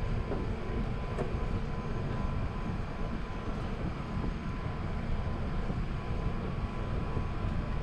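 Steady low rumble of cabin noise inside an Airbus A380 on the ground after landing, with a faint steady whine.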